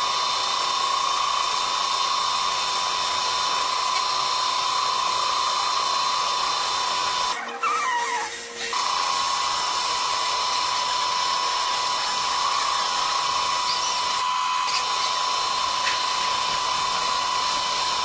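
Mini lathe running at speed with a steady high whine over a hiss, breaking off briefly about seven and a half seconds in before it picks up again.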